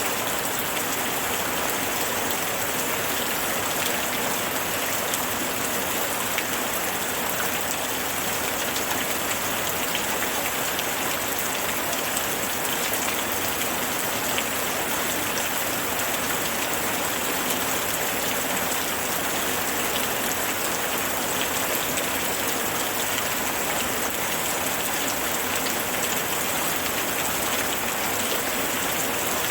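Steady rain falling, a dense, even hiss with fine crackling drops pattering on a surface.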